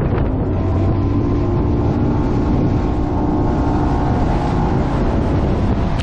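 Outboard engine of a bass boat (250 hp Mercury Pro XS) running under way with a steady tone, half buried under heavy wind buffeting on the microphone as the boat crosses big waves in strong wind.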